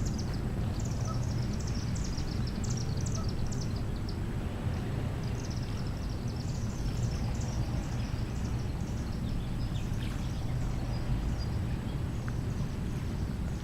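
Small birds chirping and twittering in quick high runs over a steady low rumble.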